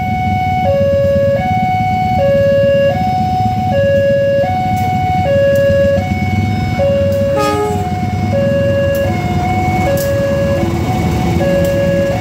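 Level-crossing alarm sounding its two-tone warning, stepping between a lower and a higher tone about every three-quarters of a second, over the low rumble of a diesel-hauled passenger train approaching and passing. A brief horn blast about halfway through, as the locomotive reaches the crossing.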